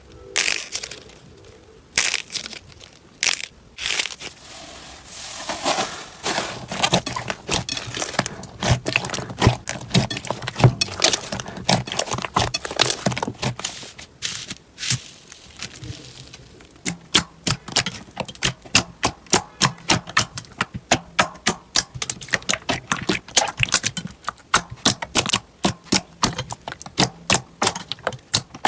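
Slime being worked by hand, giving sharp crackling pops, scattered at first and then coming quickly, about three or four a second, from a little past halfway.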